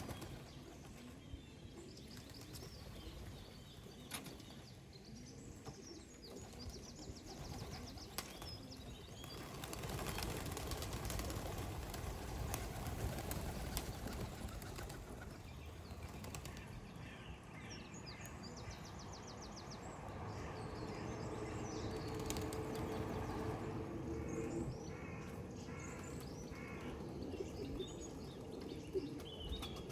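Racing pigeons flapping their wings as they land and move about the loft, with bursts of high bird twittering at times.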